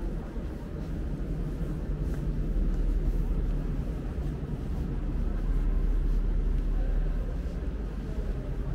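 Steady low rumble of ambient room noise in a large underground salt-mine chamber, with no distinct events.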